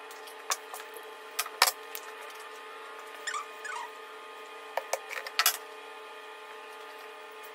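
Clinks and knocks of metal tools and engine parts being handled on a steel workbench over a steady hum, with the sharpest knock about one and a half seconds in and a short run of quick clicks a little later.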